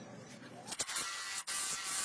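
A loud, steady hiss that starts about two-thirds of a second in and breaks briefly near the middle, the sort of rush made by compressed air or a spray jet.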